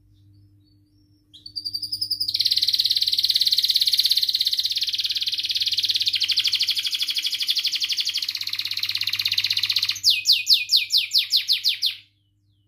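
Domestic canary singing. After a second or so of quiet comes a long, fast rolling trill for about eight seconds, then a run of quick notes, about six a second, each falling in pitch, which stops shortly before the end. A faint steady hum lies underneath.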